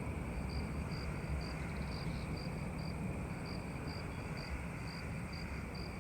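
Quiet background ambience: a steady low rumble and hiss, with a faint high chirp repeating about twice a second.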